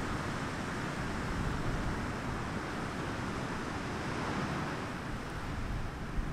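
Steady wind blowing, with low rumbling buffets of wind on the microphone under a soft hiss.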